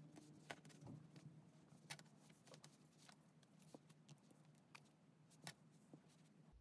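Near silence: faint room tone with a low steady hum and a few scattered soft clicks and taps.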